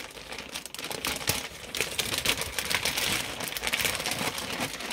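Clear plastic garment bag crinkling as hands handle it around a pair of checked trousers, a continuous run of quick crackles.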